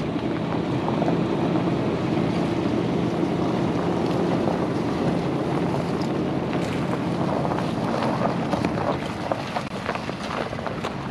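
A motor running steadily, with a low hum, as the truck that will not run is pulled onto a trailer; crackling and ticking join in over the second half.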